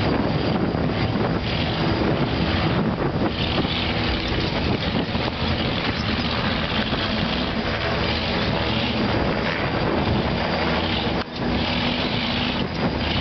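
Off-road race buggies' engines running under load as they crawl up a boulder trail. A helicopter's rotor drones overhead, and there is wind on the microphone.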